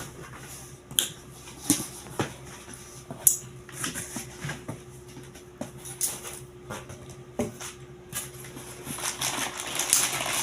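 A cardboard shipping box being opened and its packing handled by hand: scattered knocks, tears and scrapes, with a rustle of packaging building near the end.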